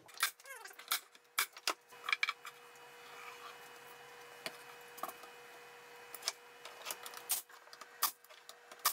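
Scattered light knocks and clicks of wooden strips and a pneumatic nailer being handled on a plywood pallet deck, with a few sharper snaps near the end. A steady hum comes in about a second and a half in and cuts off suddenly about seven and a half seconds in.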